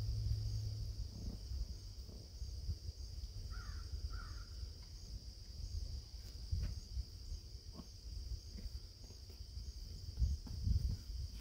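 Summer outdoor ambience: a steady high insect drone with a low rumble underneath, and two short bird calls about four seconds in.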